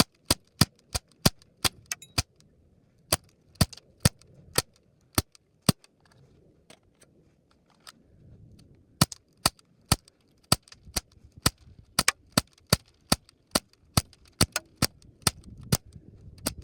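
BB gun firing rapid repeated shots, about two to three sharp cracks a second, with a pause of a few seconds about a third of the way in before the shooting resumes.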